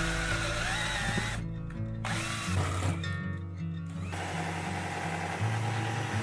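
Power tools working wood in short runs, starting and stopping twice: cordless drivers sinking screws into wooden panels, then a jigsaw cutting a board. Background music plays underneath.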